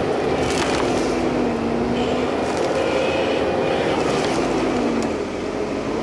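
Bobcat T770 compact track loader's diesel engine running under hydraulic load as its tree-puller claw grips and pulls an oak about five inches thick. The engine pitch sags under the strain about a second and a half in and again near the end.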